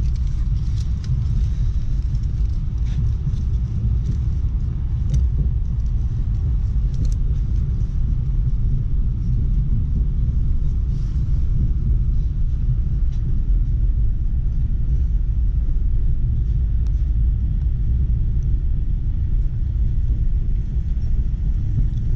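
Steady low rumble of an ES2G Lastochka (Siemens Desiro RUS) electric multiple unit running along the line, heard from inside the passenger car, with a few faint clicks.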